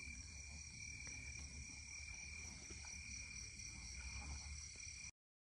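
Faint night chorus of crickets and other insects trilling steadily in several high pitches over a low rumble. It cuts off abruptly about five seconds in.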